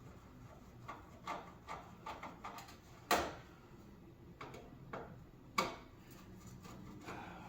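Metal parts and hand tools clicking and knocking during the teardown of a coffee warmer: a run of light clicks, then two sharper metal knocks about two and a half seconds apart.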